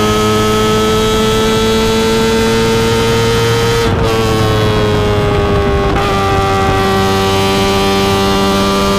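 Kawasaki ZX-25R's inline-four engine through an Akrapovic exhaust, held at high revs while riding, its pitch creeping slowly upward. About four seconds in there is a brief break, after which the pitch settles slightly lower and holds steady.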